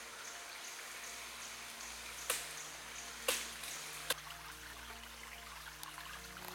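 Steady hiss of a forest stream running, with a faint high chirp repeating about three times a second, and three sharp snaps about two, three and four seconds in.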